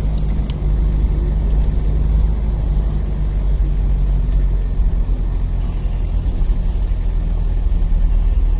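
Steady low rumble of a vehicle driving, its engine and road noise holding an even pitch without revving.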